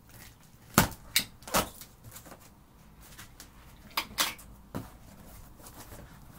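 A cardboard box being opened by hand. About a second in there are three sharp tearing scrapes as the packing tape is cut and pulled. Around four seconds in the flaps are pulled open, with a few more scrapes and rustles of cardboard.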